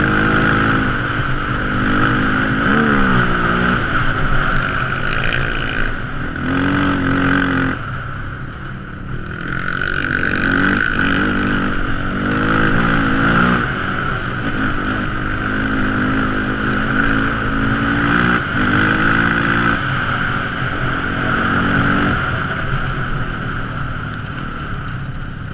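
Quad ATV engine running while riding, its pitch rising and falling with repeated revs, over a steady high whine; it grows fainter near the end.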